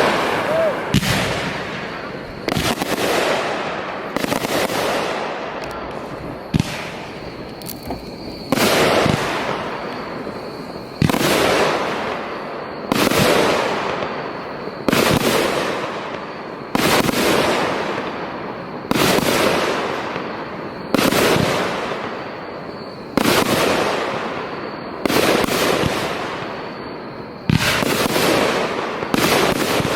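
Fireworks show: aerial shells bursting one after another, about one every two seconds, each sharp bang trailing off in a crackle.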